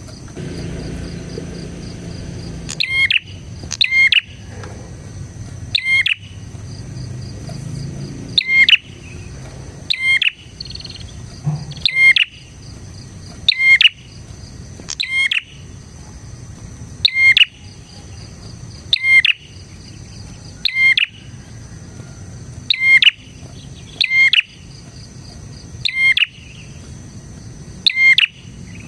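Prinia (prenjak) calling, a sharp loud note repeated about every one and a half to two seconds, starting about three seconds in. A steady high insect-like drone runs underneath.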